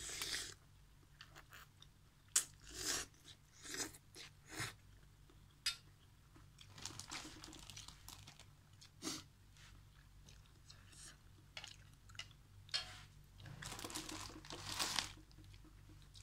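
Close-miked chewing of a mouthful of instant noodles and egg, heard as a string of short, separate mouth sounds. Near the end comes a longer rustle, a paper tissue being handled.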